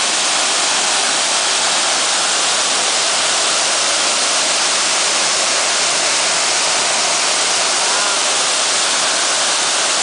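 Waterfall pouring into a rock pool: a loud, steady rush of falling water.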